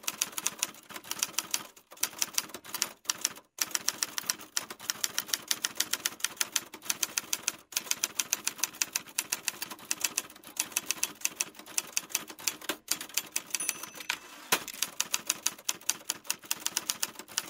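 Typewriter keystroke clicks in a fast, uneven run, several a second, broken by a few brief pauses.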